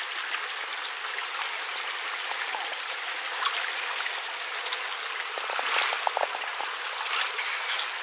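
Floodwater rushing steadily past, heard through a police body camera's microphone. A few short knocks and rustles come about six seconds in.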